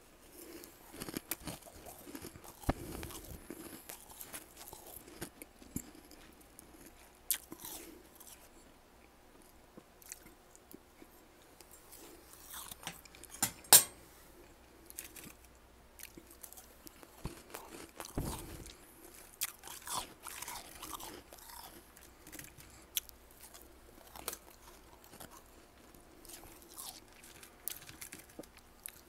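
Freezer frost being bitten and chewed close to the microphone: irregular crunches with pauses between them, and one sharp, loud crunch near the middle.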